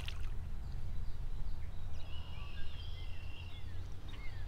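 Outdoor ambience: a steady low rumble with small birds chirping faintly now and then, several short falling chirps in the middle.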